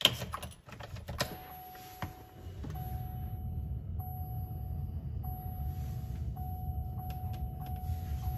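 Ignition key clicks as it turns in a 2012 GMC Sierra, then the truck's warning chime sounds as a repeating steady tone, on and off about once a second. The chime plays through the newly installed aftermarket radio's adapter, so it has been kept. A low steady rumble runs under it from about two and a half seconds in.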